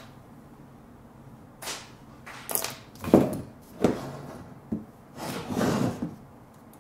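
Hand tools and sheathed electrical cable handled on a wiring practice board: a string of light knocks and clicks, the sharpest a little past the middle, then a longer scraping rustle near the end as the tools are picked up and moved aside.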